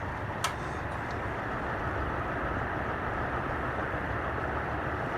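Antique Westinghouse Baby Sidewinder ceiling fan running at full speed: a steady rush of air from the blades with the motor's running noise, and a single short click about half a second in.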